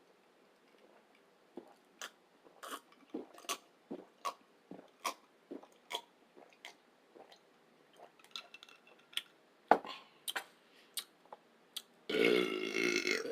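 Close-up chewing with a string of short wet mouth clicks and smacks, then a loud burp lasting about a second near the end.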